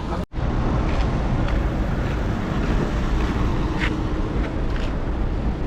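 Wind buffeting the microphone outdoors: a steady low rumble with a few faint ticks, broken by a split-second dropout right at the start.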